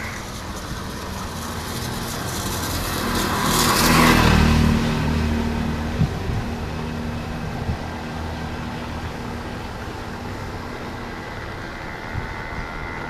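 A motor vehicle passing close by: its engine and road noise swell to a peak about four seconds in and then fade, leaving a lower steady hum with a few light knocks.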